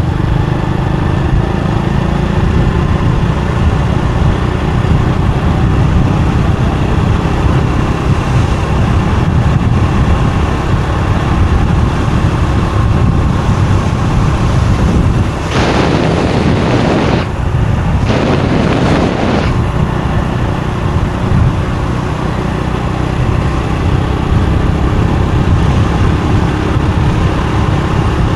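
Motorbike riding along a road: steady engine and road rumble. Two short rushes of hissing noise come a little past halfway.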